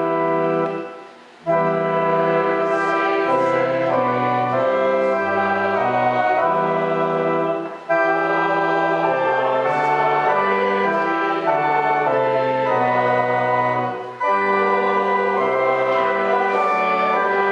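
Church organ playing a slow piece in held chords, with a short break between phrases about a second and a half in, near eight seconds and near fourteen seconds.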